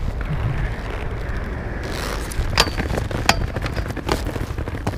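Inline skate wheels rolling over concrete with a steady rumble, with several sharp clicks in the second half.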